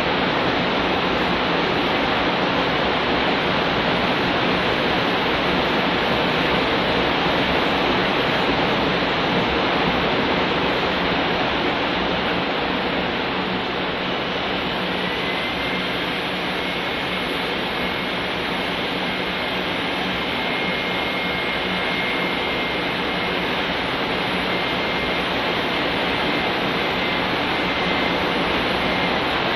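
Handheld electric drill running continuously with a steady, even whir as its spinning attachment dabs paint onto a wall. A faint high tone joins in about halfway through.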